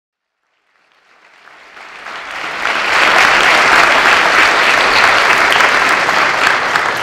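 Audience applauding: silent for about the first second, then clapping swells in and holds steady.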